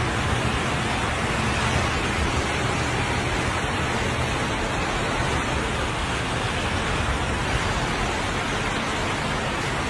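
Steady rushing hiss of heavy rain and moving floodwater on a flooded street, with a low rumble underneath.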